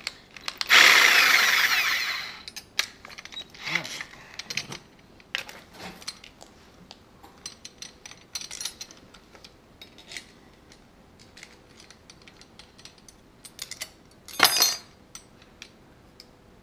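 Blade change on a reciprocating saw. A short loud burst of noise about a second in fades over a second or so. Scattered clicks and metal clatter follow from the blade clamp and pliers, with another sharp clatter near the end.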